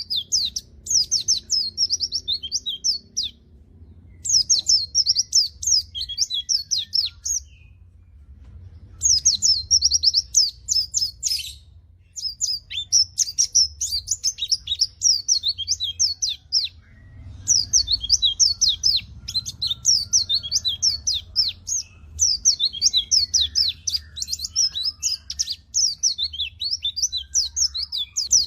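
White-eye (pleci) singing vigorously: fast, high-pitched twittering in bouts of a few seconds, broken by short pauses, then a longer unbroken run in the second half.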